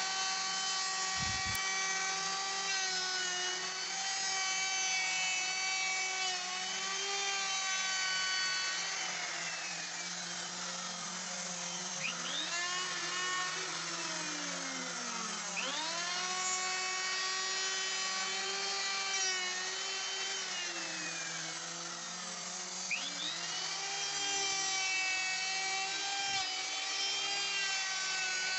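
Handheld electric wood router running while cutting a rabbet for the glass along the back of a wooden window frame. Its steady whine sags in pitch and climbs back several times, around the middle and again about three-quarters through, as the bit takes load in the wood.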